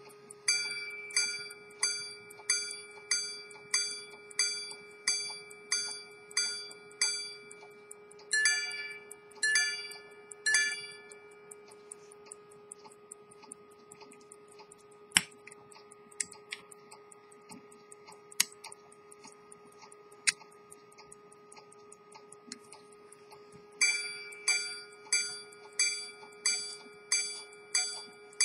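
Swiss quarter-repeater pocket watch striking its gongs: a run of evenly spaced chimes about two a second, then a few strokes on a second, lower-pitched gong. A pause broken by a few faint clicks follows, then another run of chimes near the end.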